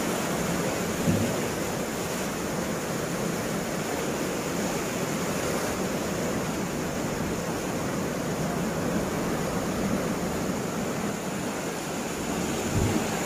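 Sea surf washing and breaking against a rocky shore below a cliff: a steady, even rush of waves.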